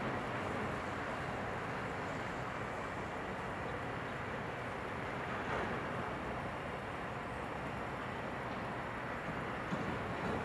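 Steady rushing noise of a Boeing 787-9's jet engines at low taxi thrust as the airliner rolls along the taxiway.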